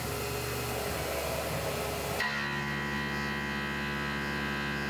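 Tormach PCNC 1100 CNC mill running with a Shear Hog cutter at an aluminum part: a steady hum made of many tones. The hum shifts suddenly to a different set of tones a little over two seconds in.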